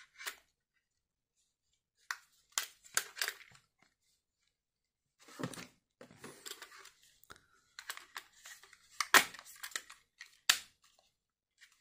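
Scattered clicks and rustling of hard white plastic parts and paper being handled: a curtain robot's body and hook fitting turned over in the hands, with packaging and a paper manual shuffled. The two sharpest clicks come near the end.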